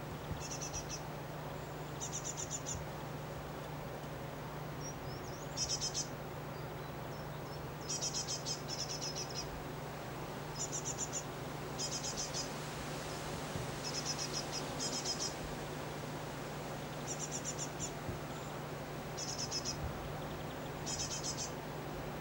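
Great tit nestlings begging: about a dozen short, high, rapid trilled calls, repeated every second or two.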